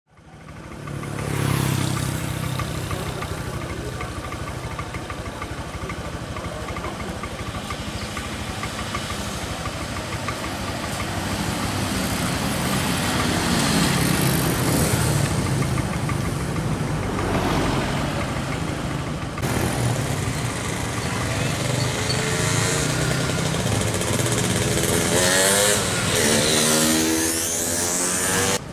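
Vehicle engines running, with some rising and falling engine pitch near the end.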